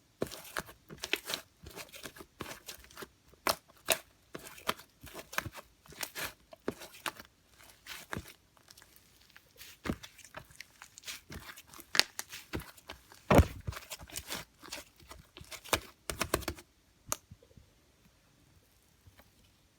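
Slime being squished and stretched by hand, giving a dense run of sticky crackling pops and clicks that stops about three-quarters of the way through, with one last pop shortly after.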